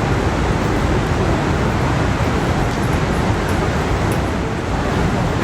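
Iguaçu Falls' waterfall roaring: a loud, steady rush of falling water, heaviest in the low end.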